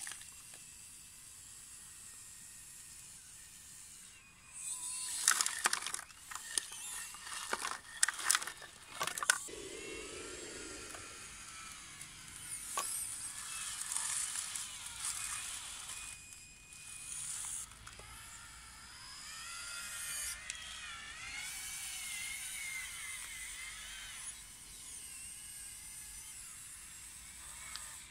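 Electric drive motors and actuators of a 3D-printed RC CAT 950M wheel loader whining, rising and falling in pitch as it drives and works its bucket. Between about five and nine seconds in there is a run of sharp clattering, stones knocking as the loader digs into wet gravel.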